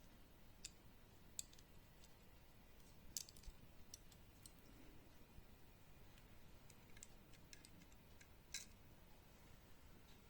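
Faint, sharp, scattered clicks, about a dozen, the loudest about three seconds in and near the end: small parts of a Glock 44 slide handled and fitted during reassembly.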